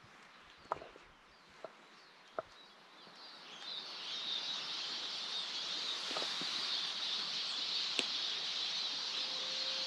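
Wind rising in the tops of spruce trees, a high, even hiss that builds up about three seconds in and holds. A few sharp ticks are heard before it.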